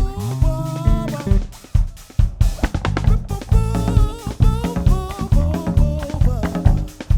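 Live band playing an upbeat song: drum kit with snare and kick drum, heavy bass, and a wavering melody line over them.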